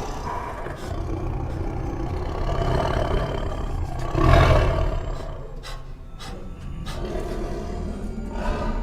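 Lions roaring and growling over background music, with the loudest roar about four seconds in.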